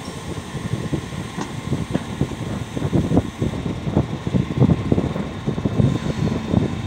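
Diesel engine of a wheel loader running, with an uneven low rumble that swells and dips.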